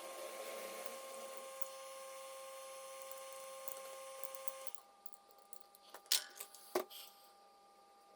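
A small electric machine running with a steady hum and hiss at several fixed pitches, cutting off suddenly a little under five seconds in, followed by a few light clicks and knocks.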